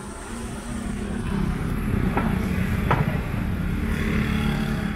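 Street traffic: a motor vehicle engine running close by with a steady hum, with two short clicks a little after two seconds and near three seconds in.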